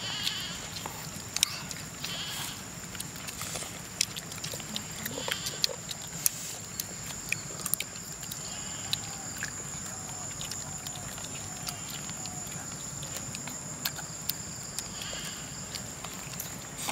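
Outdoor ambience: a steady high-pitched whine and a low hum, with scattered sharp clicks and taps and a few faint short calls in the middle.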